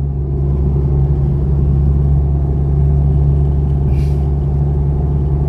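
Vehicle engine and road noise while driving: a steady low drone.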